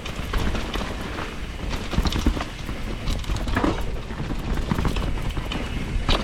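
Enduro mountain bike rattling and knocking as it descends rough, wet trail, with tyres over roots and rocks and the chain and frame clattering in a dense run of knocks over a low rumble.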